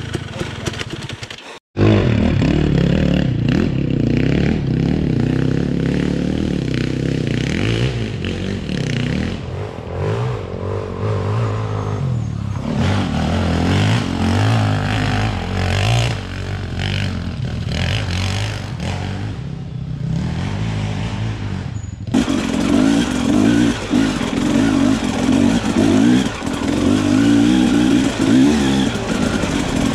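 Enduro dirt bike engines revving up and easing off while riding over rough off-road ground. The sound breaks off for a moment about two seconds in and changes abruptly about three-quarters of the way through.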